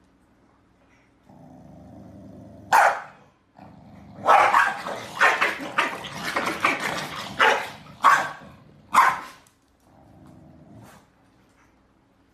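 Corgi barking with low growls around the barks: a single bark about three seconds in, a rapid string of barks for about four seconds, then two separate barks, with a low growl again near the end.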